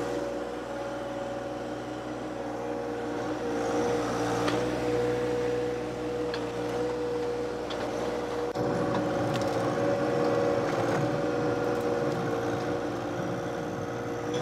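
John Deere 1 Series subcompact tractor's diesel engine running steadily, with a few faint clicks over it.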